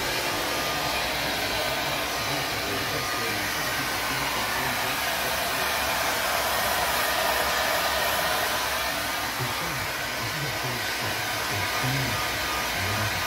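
Handheld hair dryer running continuously on a steady setting, blowing into a soft-sided fabric pet carrier. The rush of air changes a little in tone midway as the nozzle is moved around inside the bag.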